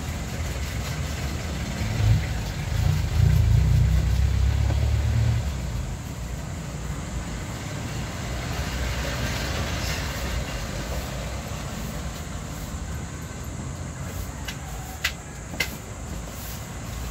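Low steady mechanical rumble, like a passing vehicle, louder for a few seconds about two seconds in, with two sharp clicks near the end.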